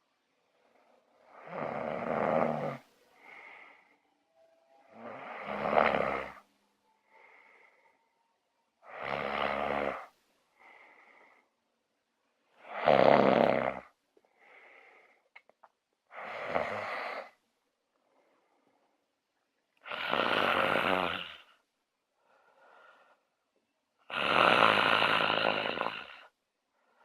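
A sleeping person snoring: seven loud snores, about one every four seconds, each followed about a second later by a quieter breath.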